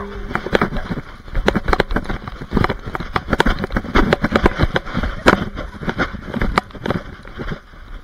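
Irregular knocks, thumps and scraping from a chest-harness camera jostling on a dog as it bounds about in snow.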